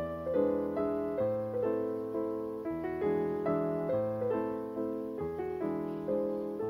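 Background music: a gentle piano piece, single notes of a simple melody a little under two per second, each fading away, over held low bass notes.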